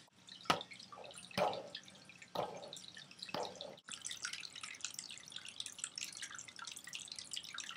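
Faint sipping from a mug: four small wet clicks about a second apart, then a faint crackling hiss.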